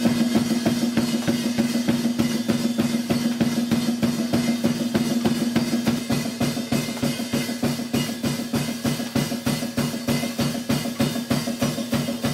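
Heavy djent-style band music: a drum kit plays a fast, even beat of kick and snare, about five hits a second, over one long held low note.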